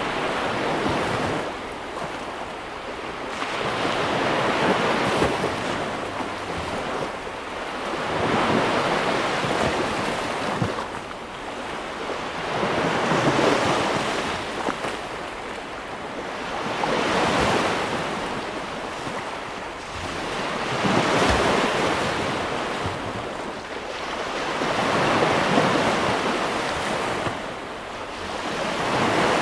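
Ocean waves breaking on a shore, a steady wash that swells and ebbs about every four seconds as each wave comes in.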